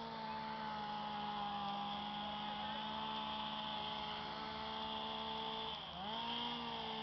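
A steady motor hum, one held tone with overtones, that dips in pitch briefly about six seconds in and comes back up.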